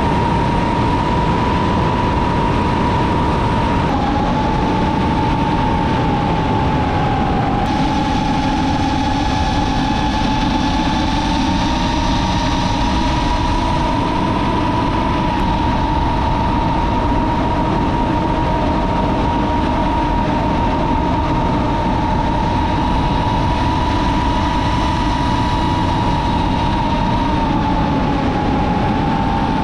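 DJI FPV drone's motors and propellers whining steadily in flight, the pitch dipping and rising a little as the throttle changes, over a rush of air noise.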